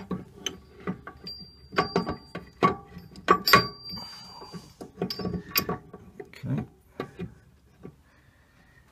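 Irregular metallic clinks and knocks, some ringing briefly, as a Record CL4 lathe spindle is worked into its pulley and locking nut inside the cast-iron headstock.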